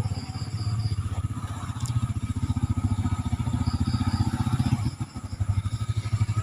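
A small engine running steadily with a fast, even low pulse, easing off briefly about five seconds in.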